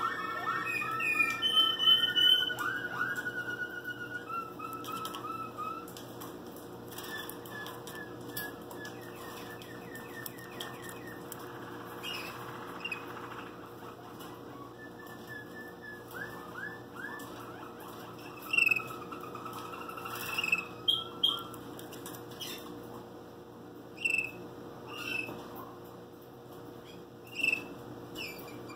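Waterslager canary singing softly: rapid rolling trills in the first half, giving way to short separate chirps later on.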